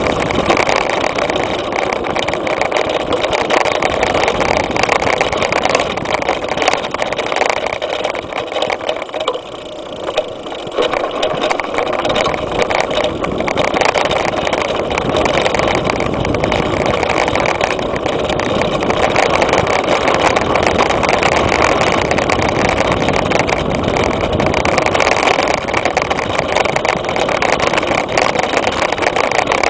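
Mountain bike ridden fast over a dirt and grass trail, heard from a handlebar-mounted camera: steady wind rush on the microphone mixed with tyre rumble and a continuous clatter of rattles from the bike over rough ground. It eases briefly about nine seconds in, then picks up again.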